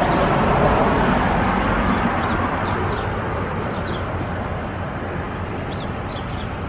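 Street traffic noise, loudest at first as a vehicle goes by and slowly fading, with a few faint bird chirps.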